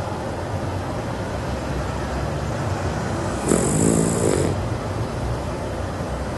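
Snoring: a steady low rumble of breathing, with one louder buzzing snore with a hiss, lasting about a second, about three and a half seconds in.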